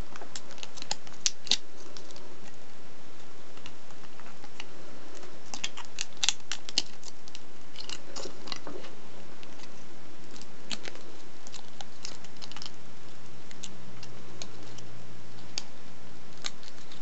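Thin foil chocolate-coin wrapper crinkling in the fingers as it is squeezed and wrapped tightly around a foil stem, in scattered bursts of small crackles.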